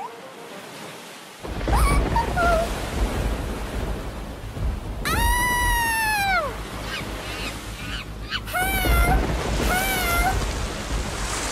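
Loud, steady rushing of pool water as the inflatable float glides and splashes across the pool, starting about a second and a half in. A long falling high wail sounds about five seconds in, and a few short wavering high cries come around nine to ten seconds.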